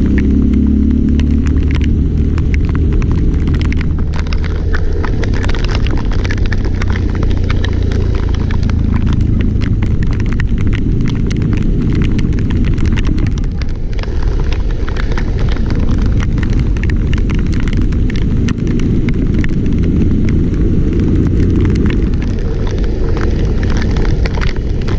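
Loud wind rumble buffeting the microphone, with dense crackling throughout and a low engine drone in the first couple of seconds.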